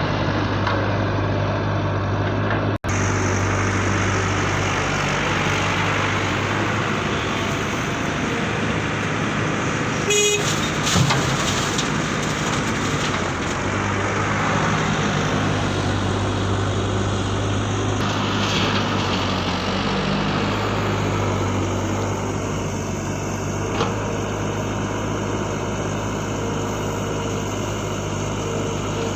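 Electric motors and gearboxes of radio-controlled construction models running steadily with a whirring hum. The sound cuts out for an instant about three seconds in, and a brief horn-like tone sounds about ten seconds in.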